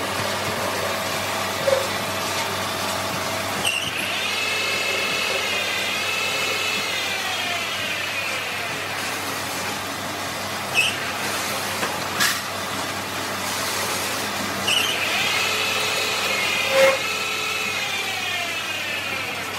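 Metal lathe running and cutting steel bar stock for a truck wheel stud, with a steady machining noise. Twice the cut gives a high whine that slides lower in pitch over a few seconds. A few sharp metallic clicks come in between.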